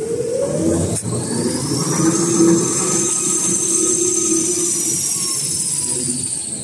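Paper towel rewinding machine running with a high whine that rises in pitch over the first couple of seconds, holds steady, then falls away near the end, over a steady low mechanical hum.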